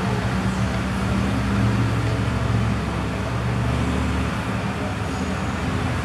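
Steady low rumble with a continuous background hiss, its low hum shifting in strength a couple of times.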